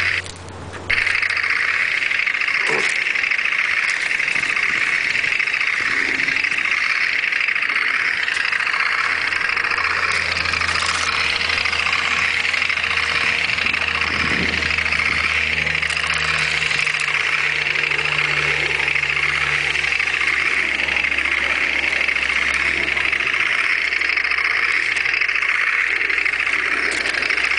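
Radio-controlled airsoft T-72 model tank driving over rough ground: a steady, high-pitched mechanical buzz from the toy tank running, briefly dropping out less than a second in.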